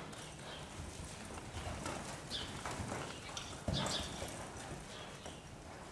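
Cutting horse's hooves thudding and scuffing irregularly in the deep dirt of an indoor arena as it stops and turns on a calf, with the heaviest thump a little past halfway.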